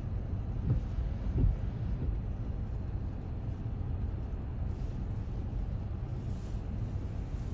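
Car driving on a snow-covered road, heard from inside the cabin: a steady low rumble of engine and tyres, with a couple of brief thumps in the first second and a half.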